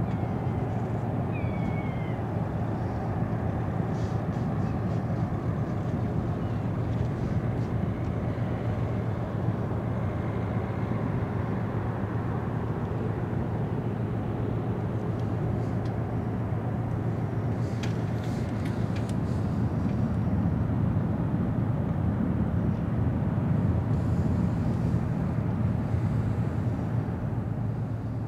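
Steady low engine rumble, swelling slightly past the middle, with a brief high rising call about two seconds in.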